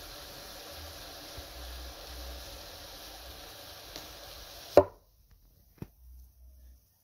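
Steady hiss of a hot steel blade sizzling as it melts down into a pink bar. The hiss stops abruptly with a sharp knock about five seconds in, followed by a fainter tap a second later.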